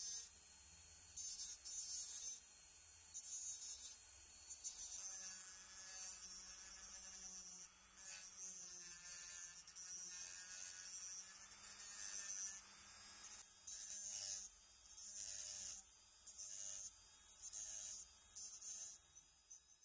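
Rotary tool with a small abrasive cut-off disc grinding a small brass part: a high hiss of disc on metal that comes and goes in repeated short passes, over the steady whine of the tool's motor.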